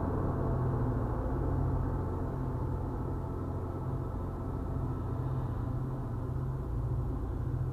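Low rumble of a departing MBTA commuter train's diesel locomotive, slowly thinning out as it moves away. A steady low hum carries on underneath.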